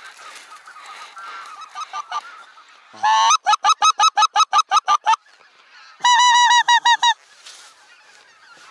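Goose call sounding two quick runs of short, evenly spaced honks, about seven a second, the first lasting about two seconds and the second about one, calling to a flock of wild geese overhead. Faint calls from the distant geese can be heard between the runs.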